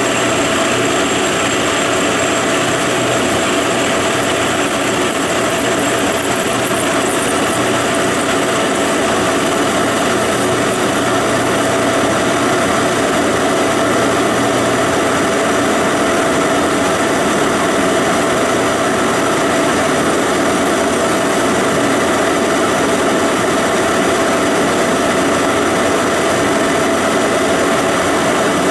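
Big Monarch engine lathe running steadily while its tool turns a taper on an 8620 steel shaft: a continuous machine drone with a steady whine over it.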